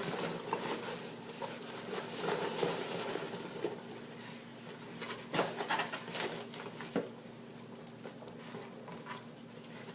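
Faint rustling and light tapping of packaging being handled, with two sharper clicks about five and a half and seven seconds in.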